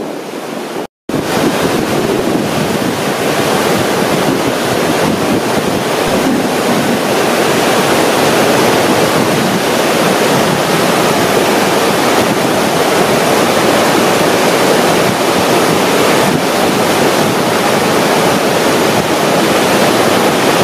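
Steady rush of whitewater in a large river rapid, running at about 60 cubic metres a second. The sound drops out briefly about a second in, then the rushing water carries on unchanged.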